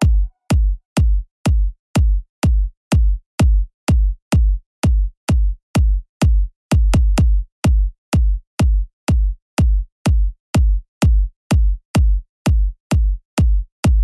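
Electronic background music stripped to a bare drum-machine kick drum beating steadily about twice a second.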